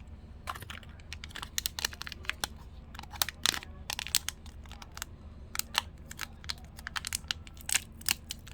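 Blind-box packaging for an enamel pin being opened by hand: irregular crinkling, tearing and small sharp clicks.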